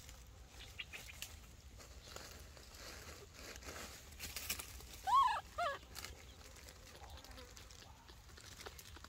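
Baby monkey giving two short, high squeaking calls about five seconds in, each rising then falling in pitch. Faint scattered clicks and rustles surround the calls.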